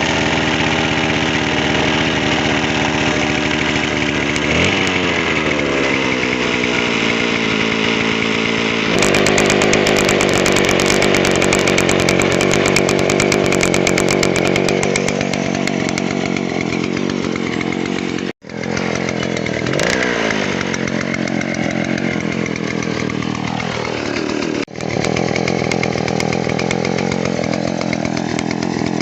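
Stihl 070 two-stroke chainsaw running hard, its engine pitch sagging and recovering several times. The sound cuts out briefly twice, about 18 and 25 seconds in.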